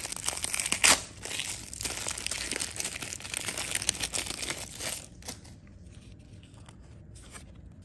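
Foil wrapper of a baseball card wax pack crinkling as it is pulled open and off the cards, with a loud crinkle about a second in. After about five seconds it goes quieter, leaving faint light clicks of the cards being handled.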